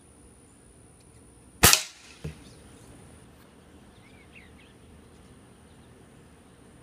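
A single sharp rifle shot, followed about half a second later by a fainter knock, with faint bird chirps afterwards.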